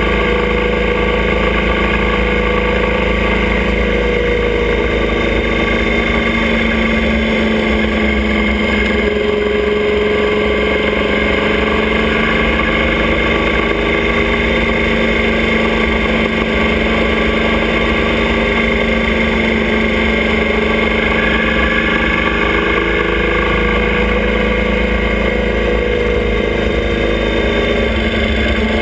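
Motorcycle engine pulling a sidecar outfit, running steadily at road speed, heard close up. Its pitch rises and falls a little as speed changes.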